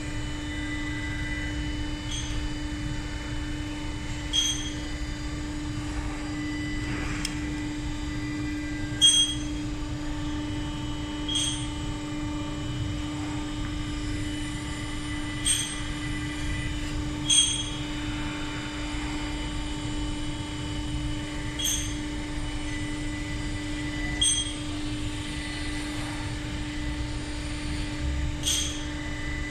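Steady hum of a running self-clinching fastener insertion machine, with about a dozen short, sharp, high metallic clicks every two to four seconds from its feed mechanism.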